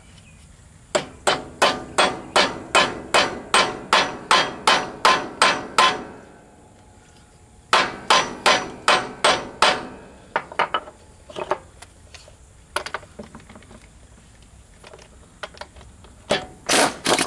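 Hammer striking steel, about three blows a second in two steady runs, then scattered lighter taps and a few quick blows near the end.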